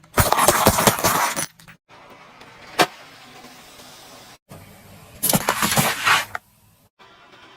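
Brittle objects crunching and cracking under a car tyre, in two loud bursts about four seconds apart, with a single sharp crack in between.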